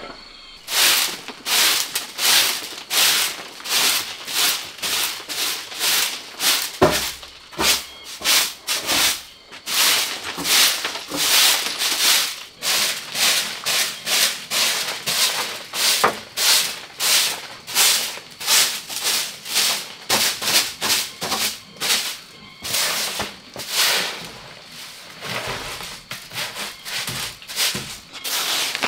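Soft grass broom sweeping a sandy dirt floor: a steady run of brushing swishes, about two strokes a second.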